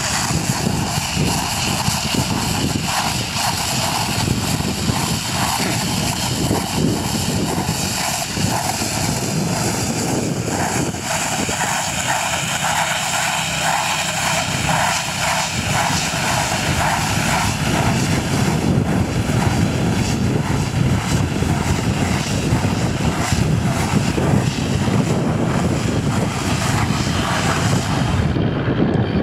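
SAME Tiger 75 tractor's diesel engine running steadily under light load while it tows and powers a Sipma Maja 7535 bale wrapper.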